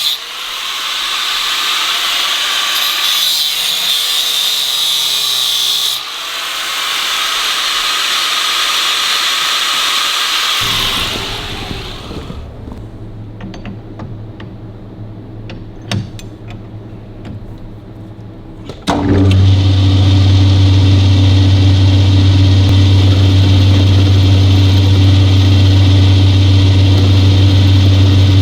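A high-pitched power tool working metal in two long runs, falling quiet about a third of the way in. After some clinks, a metal lathe's motor starts suddenly about two-thirds in and runs with a steady low hum.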